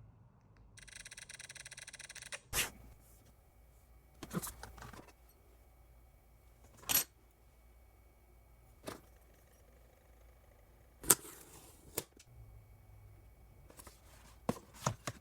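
Phone-kit packaging and accessories being handled in an unboxing. About a second in there is a short, evenly pulsed rasp lasting under two seconds, followed by about eight sharp, separate clicks and snaps, with the loudest one about eleven seconds in.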